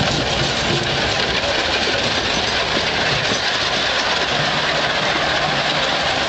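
Horse teams and their spoked, iron-rimmed gun carriages moving past at close range: a steady, dense rumble and clatter of hooves and wheels on the gravel.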